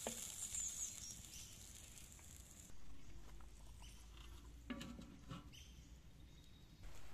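Stew simmering in a steel wok, a high sizzling hiss with small squeaky pops, cutting off about two and a half seconds in. About five seconds in, a metal lid is set down on the wok with a brief ringing clatter.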